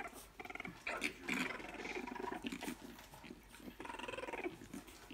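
Three-week-old Boston Terrier puppies making a string of short vocal sounds as they move about.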